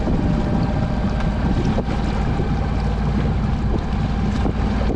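Wind buffeting the microphone over the rush of water along a sailboat's hull and wake, with a steady low rumble underneath.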